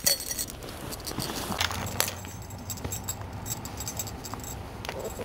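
Metallic jingling of a cat's collar charm, dense in the first half second, then a few scattered clicks and knocks as the cats move about on a wooden floor.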